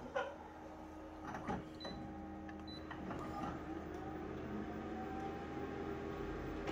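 Colour laser copier starting a copy job: a few sharp clicks in the first second and a half, then its motors spinning up into a steady whir that slowly grows louder, with a whine rising in pitch near the end.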